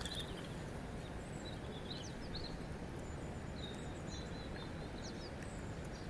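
A river flowing, a steady rush of water, with small birds giving a few short, faint chirps over it.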